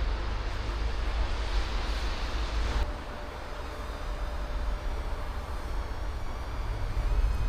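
City street traffic: a steady low rumble of passing vehicles, its hiss easing off suddenly about three seconds in.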